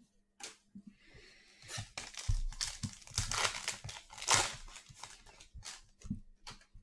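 Plastic trading-card pack wrapper crinkling as it is handled, in a dense run of rustles that builds up and is loudest a little past the middle.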